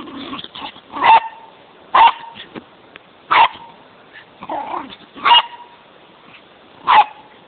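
Excited Bichon Frise barking: five sharp, high barks roughly every one and a half seconds, with softer yips in between.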